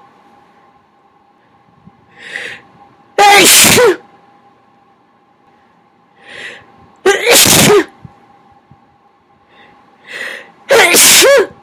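A person sneezing three big, wet sneezes about three and a half seconds apart, each preceded by a short, quieter inhale. The sneezes are induced by tickling the nose with a rolled-up piece of paper towel.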